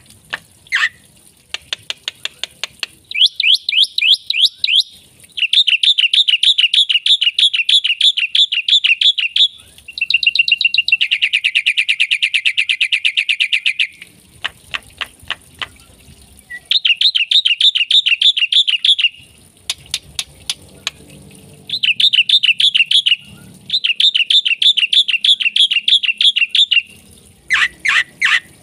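Black-winged myna (jalak putih) in full song: runs of sharp rapid clicks, then bursts of fast, shrill trilling chatter of two to four seconds each, repeated with short pauses between them.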